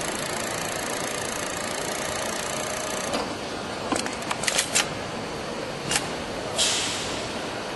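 Yamato VC2790G cylinder-bed interlock sewing machine running at high speed with a steady, fast whir, stopping abruptly about three seconds in. Several sharp mechanical clicks and a brief air hiss follow.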